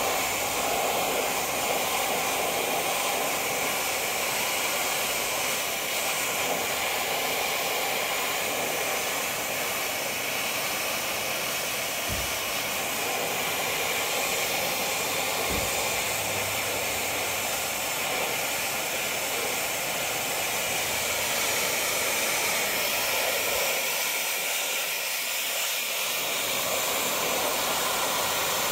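Dyson Supersonic hair dryer blowing steadily through its flat concentrator nozzle, heating stickers to activate their adhesive.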